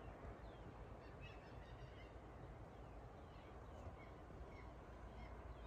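Faint distant bird calls: scattered short chirps over a low, steady background hiss.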